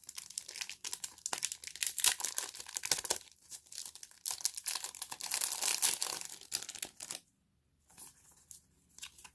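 Wrapping of a trading-card mystery pack crinkling and tearing as it is opened by hand, a dense crackle that stops about seven seconds in.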